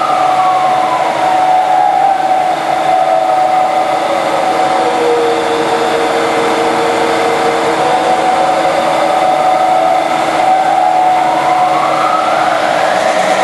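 Variable-speed belt drive of a 1959 Voest engine lathe running, with a steady mechanical hum. A whine falls in pitch over about five seconds, holds low, then rises again near the end as the pulleys shift to change the lathe speed down and back up.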